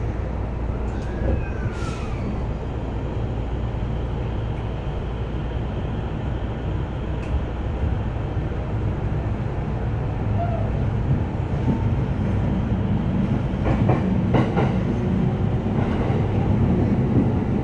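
Electric commuter train running, heard from inside the carriage: a steady rumble of wheels on rail that grows louder about ten seconds in. A few sharp clacks of the wheels over the track come near the end.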